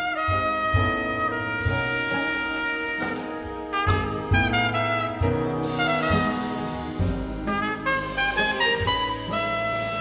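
Jazz orchestra playing an instrumental passage of a ballad, its trumpets and trombones holding chords that change every second or so over low bass notes.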